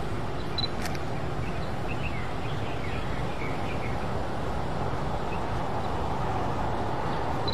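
Steady low outdoor background rumble, with small birds chirping faintly during the first few seconds.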